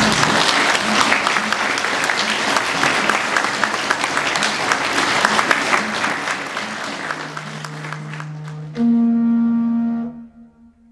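Audience applauding, the clapping thinning out after about seven seconds. A low held wind-instrument note comes in under it. About nine seconds in, a louder held note a little higher joins it and breaks off about a second later.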